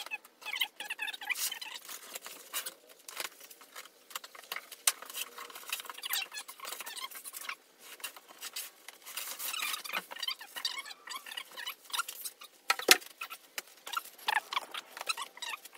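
Large cardboard shipping box being handled and unpacked: irregular scraping, crinkling and rustling of cardboard flaps and packing inserts, with many small clicks. One sharp knock, the loudest sound, comes late on.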